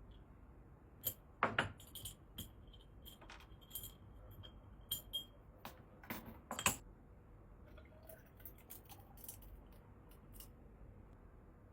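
Light clinks and knocks of kitchenware or tableware being handled: a string of sharp hits over several seconds, the loudest about a second and a half in and again past the middle, some with a brief high ringing.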